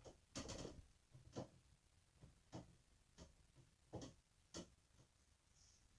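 Near silence broken by about six faint, irregular clicks and taps from a small dog shifting about at a pet-door flap on a hardwood floor.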